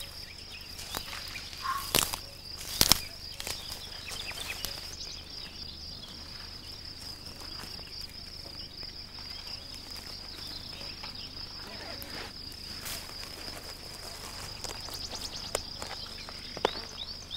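Steady high-pitched chirring of insects, with footsteps and rustling through dry undergrowth. Two sharp cracks come about two and three seconds in, with a few fainter clicks later.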